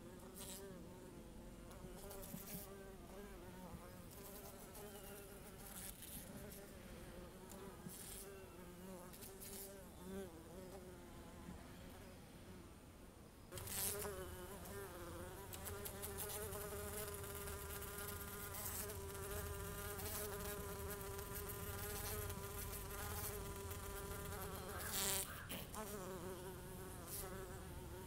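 Bee buzzing: a steady, wavering drone that gets louder about halfway through, as if the bee has come closer, with a few faint clicks along the way.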